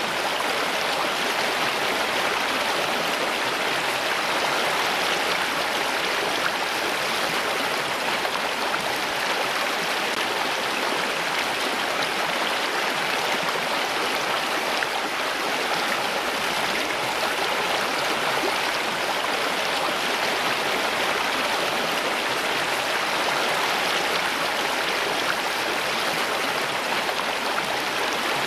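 Running water, a steady even rush with no breaks or changes.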